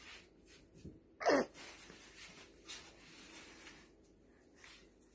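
A baby making short breathy mouth sounds around its fist, with one louder, sharper burst a little over a second in.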